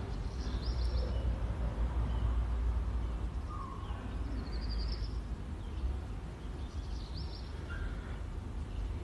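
Outdoor street ambience: a steady low rumble, with a small bird chirping in short high descending phrases three times.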